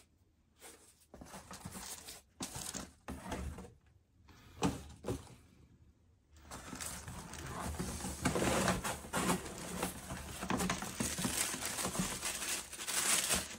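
Paper packaging being handled: a few short rustles and crinkles with quiet gaps, then continuous rustling and crinkling of paper from about halfway through as the shoebox wrapping is opened.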